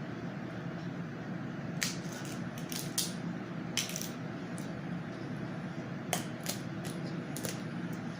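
Close-miked eating: snow crab leg shells cracking and snapping in short, sharp clicks, about nine scattered through, with quieter chewing and handling over a steady low hum.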